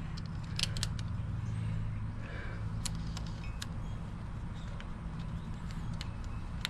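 Light, scattered clicks and taps of metal and plastic parts being handled as a wheel speed sensor is pressed into a rear wheel hub, over a steady low hum.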